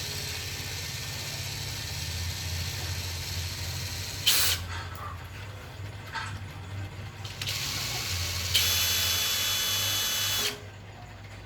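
A small electric power-tool motor runs in spells with a hissing whir, likely the drill being worked on. It gives a sharp loud burst about four seconds in, then a louder run with a high whine that cuts off sharply about ten and a half seconds in.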